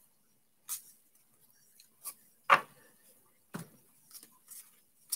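Baseball cards being flipped through by hand, one card at a time: a string of short, separate clicks, about seven of them, with a sharper knock about two and a half seconds in.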